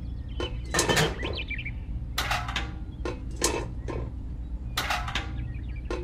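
Small metal buckets clinking and knocking as they are handled and set down on a wooden toy trailer, in several light clatters spread over a few seconds, over a steady low hum.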